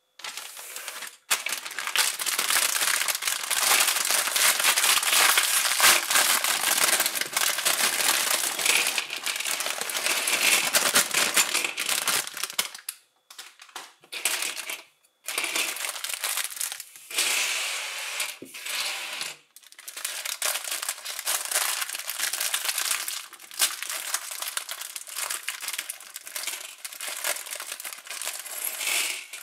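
Plastic LEGO parts bag crinkling as it is handled and opened, with a couple of short pauses about halfway through.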